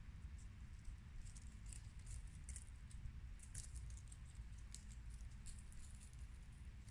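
Faint scattered clicks and rustles of ravens picking and stepping through dry leaf litter and wood chips, over a low steady rumble.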